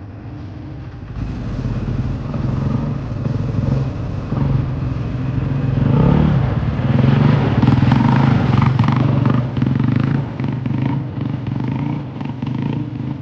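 Dirt bike engine running, growing louder from about a second in, loudest near the middle, then easing off somewhat.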